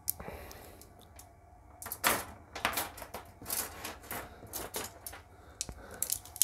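Cable rods being handled on a workbench: a run of irregular clicks and knocks as the rods tap against each other and the bench.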